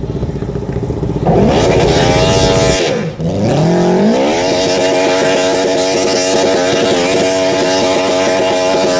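Garden pulling tractor engine running at low revs, then revving up a little over a second in. After a short drop near three seconds it climbs again and holds high revs steadily under the load of the pulling sled.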